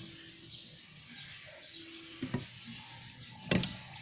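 Two light clicks about two seconds in, then a sharper knock near the end, from hands handling the plastic brake fluid bottle and the master cylinder reservoir.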